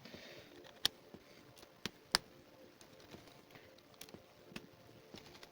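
Scattered small sharp clicks and ticks of a screwdriver and metal parts as the screws of an HP laptop's CPU heatsink are undone, the clearest about one second and two seconds in.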